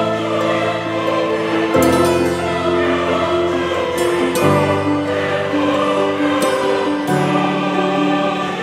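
Background music: sustained choir-like voices over held chords that change every second or two.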